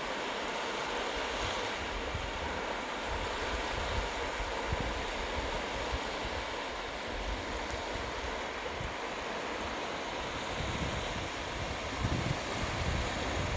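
Sea waves breaking and washing up a beach: a steady surf wash. Low wind buffeting on the microphone picks up over the last couple of seconds.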